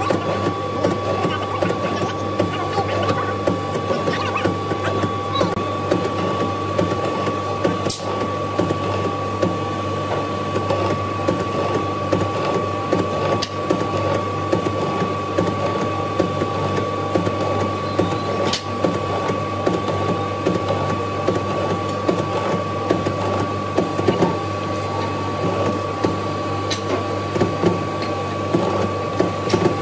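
Vertical slot-mortising machine running under load, its bit cutting a long mortise in a wooden workpiece: a steady motor whine and hum over the dense rough noise of the cut, with a few sharp ticks.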